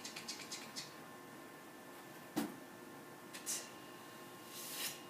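Handwriting sound effects: a quick run of faint ticks, a single sharp click about halfway through, then short hissing strokes like a pen swept across paper.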